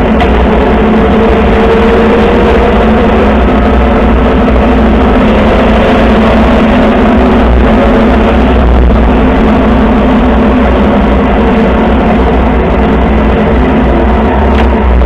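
Motorcycle engine running at a steady cruising speed under a loud, deep rumble of wind and road noise.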